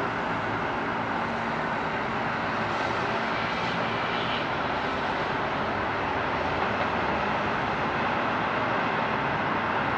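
Steady engine noise: an even wash of sound with a faint low hum underneath.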